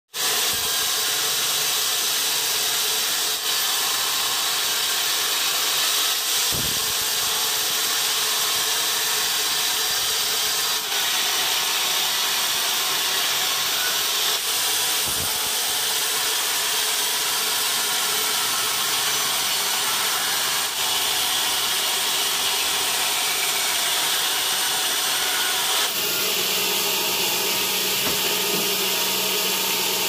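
Band sawmill blade cutting lengthwise through a large trembesi log: a steady, high sawing hiss. The sound changes about four seconds before the end, and a low hum comes in.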